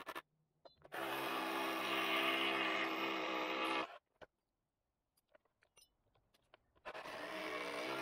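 Cordless drill running at a steady speed in two runs of about three seconds each, driving the anchor bolts that fix a parking bollard's base plate to the concrete. Light clicks of handling come between the runs.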